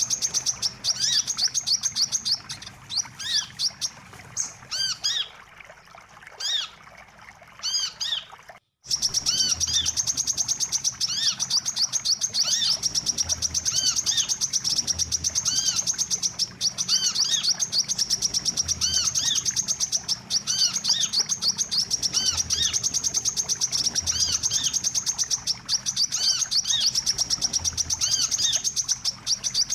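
Sunbird ('wiceh') lure song: a fast, high, unbroken trilling chatter with short arched chirps below it. It thins to scattered chirps a few seconds in, cuts out for an instant near nine seconds, then returns at full density.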